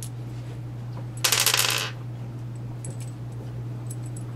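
Small loose steel parts rattling briefly against each other a little over a second in, followed by a few light clicks: the pawls and springs of a Borg-Warner T90 synchronizer hub being handled and fitted.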